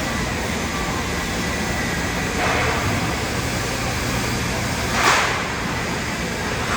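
TIG (argon) welding on a steel pipe-to-flange joint: steady hiss and hum of the arc and shielding gas, with two brief louder swells of hiss about two and a half and five seconds in.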